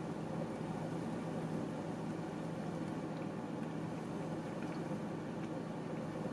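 Steady hum and hiss inside a car, with faint chewing of a chili cheeseburger.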